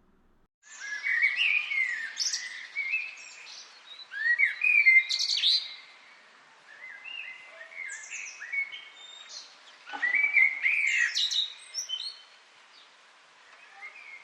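Birds chirping and singing: bouts of quick, short chirps that slide up and down in pitch, starting abruptly about half a second in, with quieter chirping between the louder bouts.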